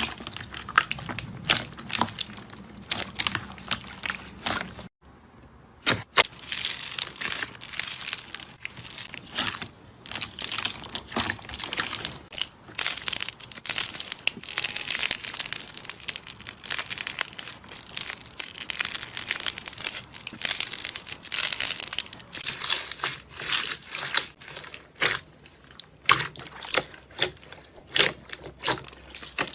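Slime being squeezed, poked and stretched by hand, giving a dense run of sticky clicks, pops and crackles, with a brief break about five seconds in.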